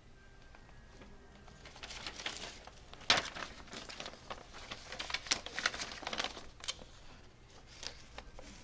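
Paper rustling and crinkling as a printed magazine page is handled, with irregular sharp crackles and one louder click about three seconds in.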